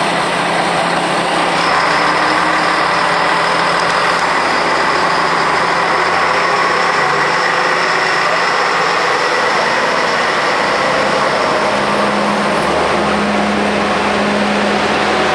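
Diesel engine of the JR Kyushu Hayato no Kaze railcar running steadily at idle, a dense, even engine noise; a lower hum joins near the end.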